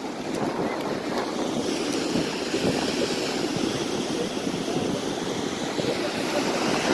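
Ocean surf washing on the shore, a steady noisy rush, with wind buffeting the microphone.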